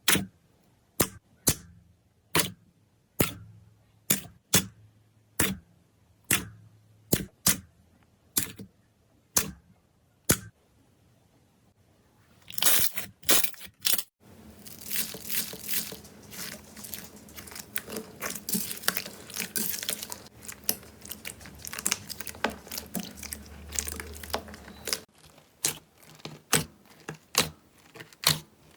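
Slime being handled: sharp pops a little more than once a second, then a dense crunchy crackling for about ten seconds starting about halfway through, then the regular pops again near the end.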